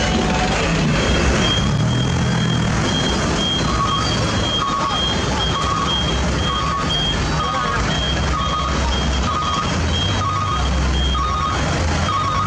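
Truck reversing alarm beeping about one and a half times a second, starting a few seconds in, over a truck engine running.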